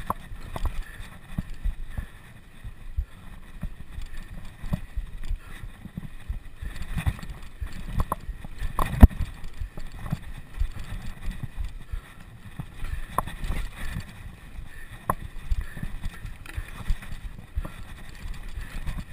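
Bicycle rattling and knocking over rough trail: irregular low thumps and clatter, with one louder knock about nine seconds in.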